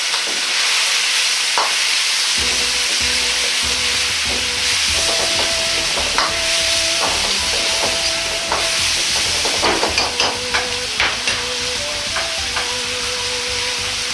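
Chicken pieces and shiitake sizzling steadily in hot oil in a wok, with a metal ladle clicking and scraping against the wok as they are stir-fried, the clicks coming thickest in the second half.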